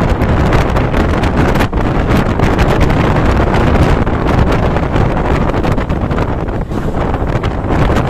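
Loud wind buffeting the microphone at the open window of a moving passenger train, over the steady rumble of the train running.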